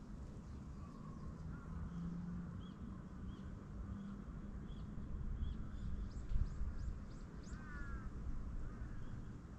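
Dawn birdsong over a low steady city hum. A small bird repeats a short high chirp at an even pace, and a quick run of sharper high notes comes about two-thirds of the way in. A lower, harsher call follows near the end.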